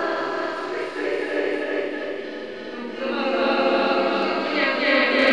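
A group of people singing together, getting louder about three seconds in.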